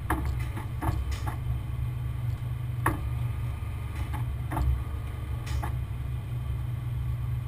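Heavy tow truck engine running with a steady low rumble, with scattered sharp clicks and knocks at irregular intervals over it.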